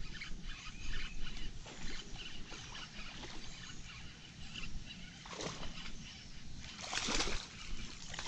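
A hooked bass thrashing and splashing at the surface as it is reeled toward the bank: a splash about five and a half seconds in and a louder one about seven seconds in.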